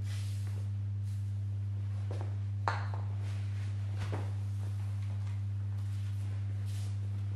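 A steady low hum with a few higher overtones, the loudest sound, with faint rubbing and scraping of a cloth wiping glass cleaner off a car's side window.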